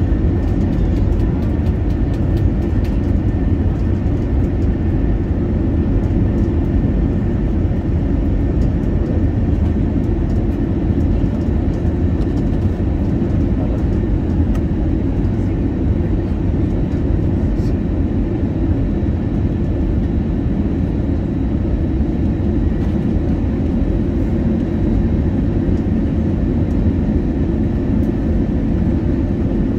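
Steady cabin noise inside an Airbus A320-271N airliner on its descent to land, heard from a window seat beside the wing: a deep, even rush of airflow and the hum of its Pratt & Whitney PW1100G geared turbofan engines at approach power, with a faint steady whine above it.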